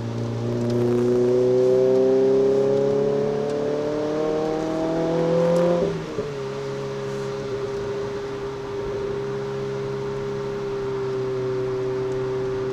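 Renault Clio RS 200's 2.0-litre four-cylinder engine heard from inside the cabin, pulling with rising pitch for about six seconds, then dropping sharply at an upshift and running on at a near-steady pitch that climbs slightly near the end.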